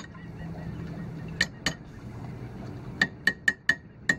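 Sharp metal-on-metal taps that each ring briefly, two about a second and a half in, then a quick run of four and one more near the end: a steel shackle being tapped down onto the end of a stainless steel rudder-cassette tube with a metal hand tool.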